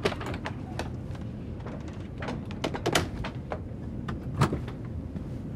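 Steady airliner cabin hum under a string of small clicks and knocks, with sharper knocks at the start, about three seconds in and about four and a half seconds in.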